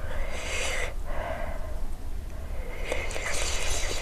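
A woman taking two long, noisy breaths about three seconds apart, mouth open, with her mouth burning from an extremely hot chili chip. A steady low hum runs underneath.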